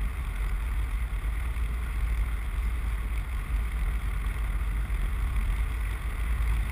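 Steady wind rushing over the microphone of a camera carried by a paraglider in flight: a heavy, even low rumble with a hiss above it.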